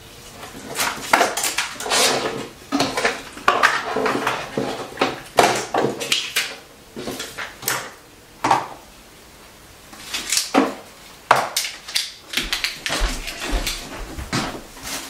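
Small toiletries and odds and ends being rummaged through in a wooden vanity drawer and set down on the countertop: a run of short clatters, knocks and rattles, with a few low thuds near the end.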